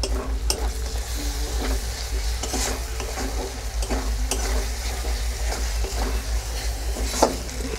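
A metal spatula stirring and scraping a thick spiced yogurt masala around a metal kadai, with irregular scrapes and taps about once a second. Under it runs a steady frying sizzle from the paste cooking in oil.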